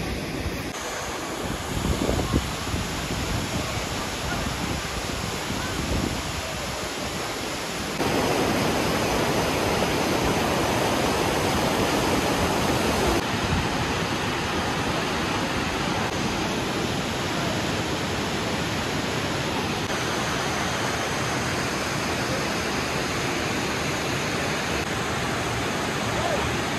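Steady rushing of a fast mountain stream and the white-water river below a waterfall. It gets louder from about eight seconds in. About two seconds in there are a few low thumps.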